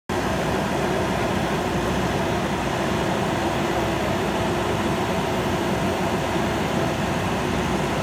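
A JCB backhoe loader's diesel engine runs steadily under working load as the backhoe arm swings out and reaches down into the mud.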